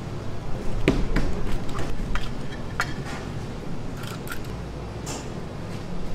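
Metal portion scoop clicking and scraping against a stainless steel bowl while scooping minced chicken filling, a string of short sharp ticks over a steady low hum.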